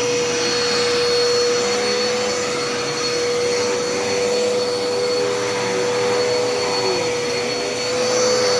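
Dirt Devil Endura Reach upright vacuum cleaner running, its motor holding a steady whine. It gets a little louder near the end.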